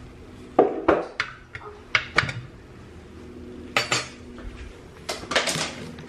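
Metal tongs clinking and scraping against a grill pan as sausages are turned: about ten sharp, irregular clinks, with a short lull around the middle.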